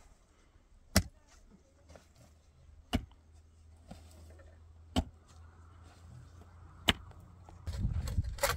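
A pick striking hard, stony soil while digging a hole: four sharp blows about two seconds apart. A low rumbling noise comes in near the end.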